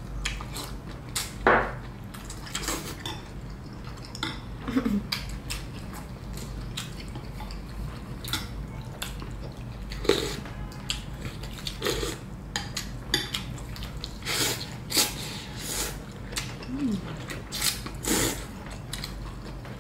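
Two people eating noodle soup: chopsticks and spoons clinking and scraping against ceramic bowls, rice noodles slurped, and chewing, in scattered short clicks and smacks. A couple of brief hums of appreciation come in, about five seconds in and near the end.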